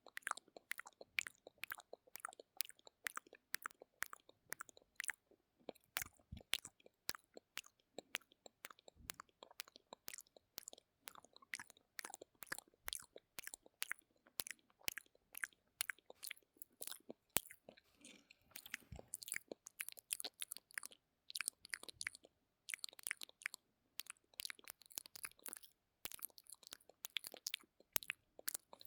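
Close-miked ASMR mouth sounds: a steady run of short clicks and smacks of lips and tongue, about three or four a second. They come closer together and noisier about two-thirds of the way through.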